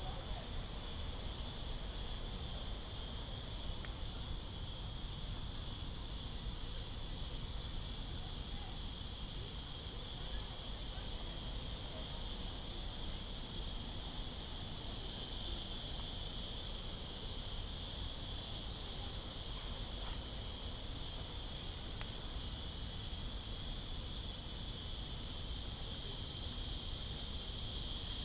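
Steady shrill chorus of cicadas, with its highest layer pulsing and flickering for a few seconds early on and again past the middle.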